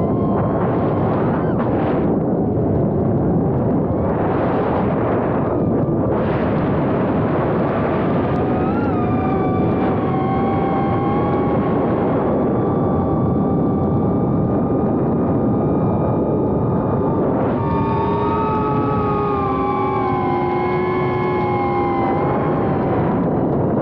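Small 3-inch FPV quadcopter's motors and propellers whining, with the pitch shifting up and down as the throttle changes, over a steady rush of air noise.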